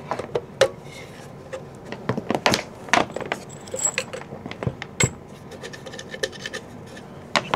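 Irregular clicks and clatter of cable plugs being handled and pushed into a handheld spindle controller box, with a few sharper knocks, the loudest about five seconds in and near the end.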